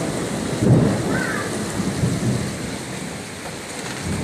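Heavy rain pouring steadily, with a low rumble that swells about a second in and then eases off.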